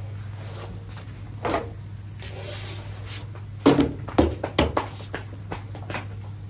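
Several sharp slaps and knocks from making large rumali roti, with dough being handled and a wooden stick working on a big domed griddle. One hit comes about a second and a half in, then a quick run of them a few seconds later, over a steady low hum.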